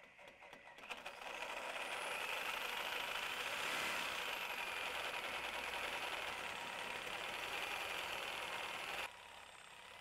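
Compact cordless reciprocating saw cutting through a pickup's steel frame horn: a steady, loud rasp of the blade on metal with the motor's high whine, building up over the first second. The cutting noise drops off sharply about nine seconds in, leaving a quieter sound.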